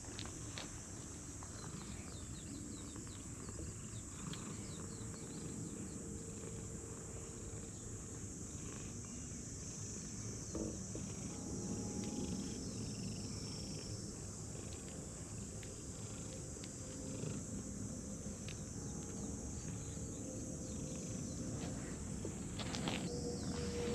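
Domestic cat purring steadily while being stroked, a low continuous rumble, with a steady high-pitched hiss behind it.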